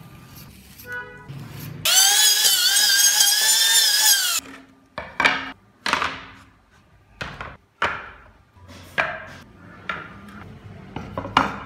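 A power saw cutting through hardwood with a loud, wavering whine for about two seconds, beginning about two seconds in. After it comes a string of sharp wooden knocks and clacks as the freshly sawn boards are handled and stacked on the bench.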